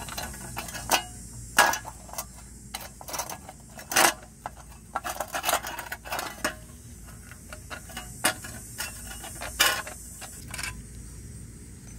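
Adjustable wrench turning an M6x1 tap back and forth in a rusted bolt thread on an old exhaust heat shield, chasing the corroded thread: irregular metallic clicks and short scrapes, with a few sharper clinks.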